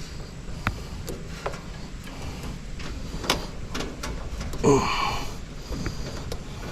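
Scattered light clicks and knocks of hands working on the unit's parts, with a short squeaky scrape that slides down in pitch about five seconds in.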